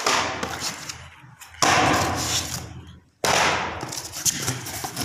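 Cardboard cartons of wire coils being handled and shifted inside a cardboard box: rustling and scraping with small knocks, in three stretches that each start abruptly.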